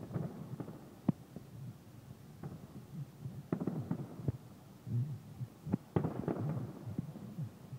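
Distant fireworks bursting: an irregular string of dull low booms with sharper pops and cracks among them.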